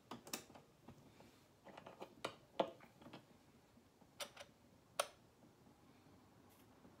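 Portable wind-up gramophone being handled: the metal tone arm and soundbox are swung and set down over the record, giving a string of sharp clicks and knocks, the loudest about two and a half seconds in and another at five seconds.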